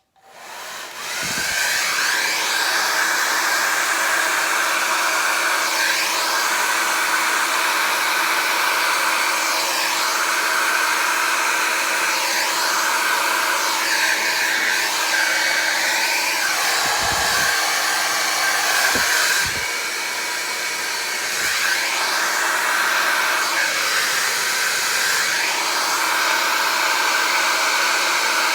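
Handheld hair dryer switched on and running steadily: a whooshing rush of air over a constant motor hum. It dips slightly in level about two-thirds of the way through. Its air is too weak or diffuse to push the poured acrylic paint around.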